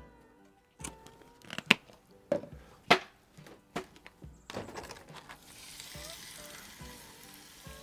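Metal tongs clicking and knocking against a cast iron Dutch oven, then raw chicken thighs sizzling from about four and a half seconds in as they go into the hot oil in the preheated pot.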